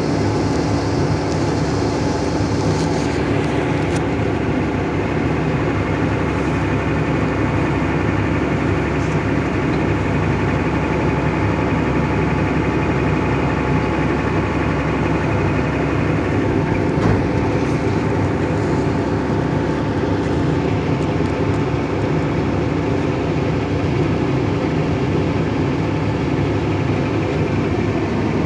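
Excavator's diesel engine running steadily, a constant drone with no pauses, and a single short knock about two-thirds of the way through.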